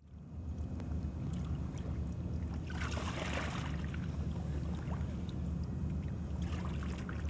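Steady low rumble of wind on the microphone by a river, with two short splashy swishes of water, one about three seconds in and one near the end.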